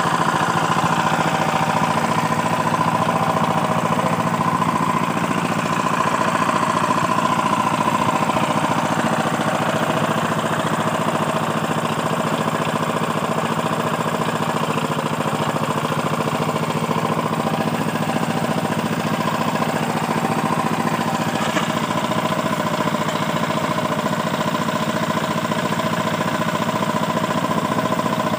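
Motor of a brick-making machine running steadily, with a constant hum.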